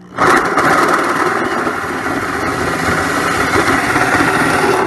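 Corded electric drill starting up a fraction of a second in, then running steadily under load as it cuts a hole through the car's sheet-metal body.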